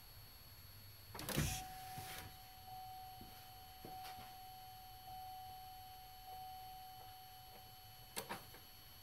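A loud clunk about a second in, then an electric fuel pump whining steadily for about six seconds as it primes the fuel system of a 3.6 LFX V6 with the ignition on and the engine not running. Two quick clicks near the end.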